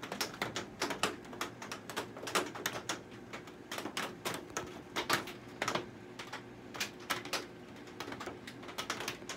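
Irregular sharp taps, several a second, of rain striking the greenhouse roof.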